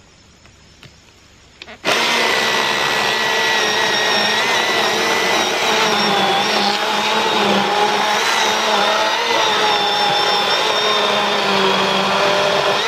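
Milwaukee M18 battery chainsaw starting about two seconds in and running with a steady whine that wavers slightly in pitch as it cuts into a walnut log, then stopping abruptly near the end.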